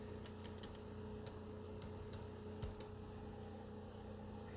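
Keys tapped on a computer keyboard, a scatter of light clicks over the first few seconds as a short folder name is typed.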